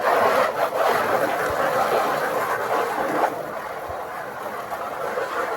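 A steady rushing noise, louder for the first three seconds or so and then a little quieter.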